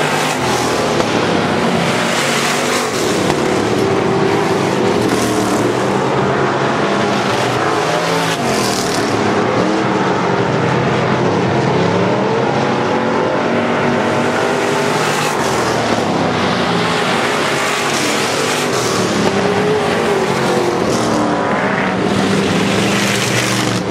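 Engines of several hobby stock race cars running hard together, their pitch rising and falling as the cars lap the track.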